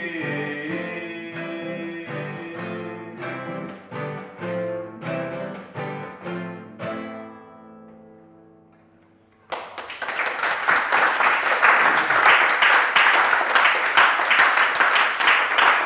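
Guitar played live: picked notes over a low bass line, gradually dying away to near quiet. About nine and a half seconds in, a sudden loud, dense, noisy wash of sound takes over.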